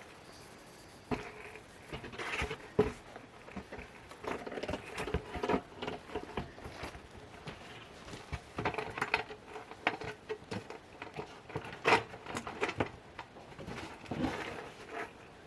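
Irregular scraping, rustling and light knocks of a cardboard concrete form tube being worked into a dug hole under a beam, with a few sharper knocks now and then.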